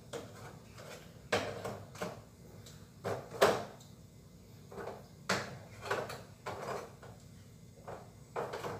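Containers and items knocking and clattering inside an open refrigerator as it is rummaged through: a string of separate knocks, the loudest about three and a half seconds in.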